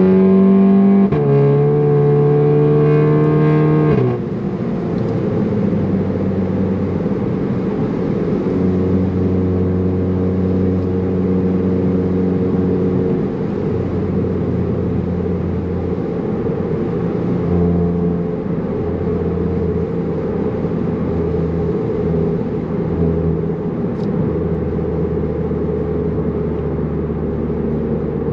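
The exhaust note of a VW Alltrack's turbocharged four-cylinder through an AWE Touring exhaust. It pulls hard under acceleration, with an upshift about a second in, and the engine pitch climbs again. About four seconds in the throttle comes off and the engine settles to a steadier, quieter cruise.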